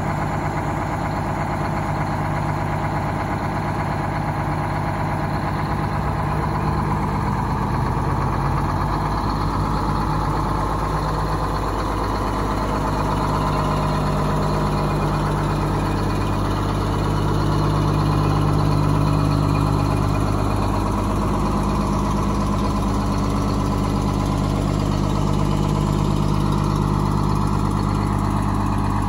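1972 Pirsch fire engine running at a steady idle.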